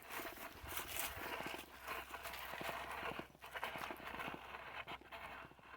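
Footsteps crunching over dry leaves and twigs, a quick, irregular run of crackling steps.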